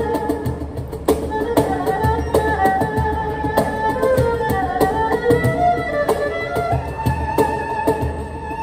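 Erhu and cajon playing an improvised duet: the erhu's bowed melody, with notes that slide up and down, over the cajon's sharp hand slaps and low bass thumps.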